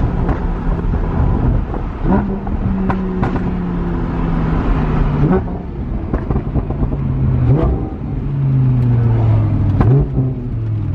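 Lamborghini Huracán's V10 engine running through an aftermarket exhaust as the car is driven. Its note sinks slowly and rises sharply again about four times in the span.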